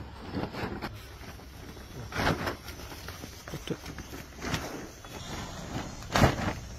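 Plastic tarpaulin rustling and crackling in irregular bursts as its edges are lifted and tugged, with the loudest burst near the end.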